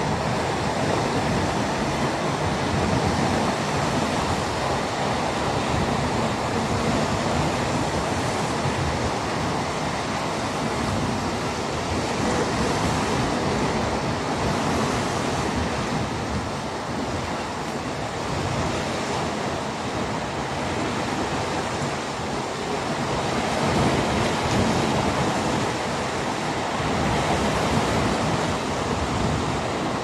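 Small waves of a calm sea washing ashore: a steady rushing wash that swells and eases every few seconds.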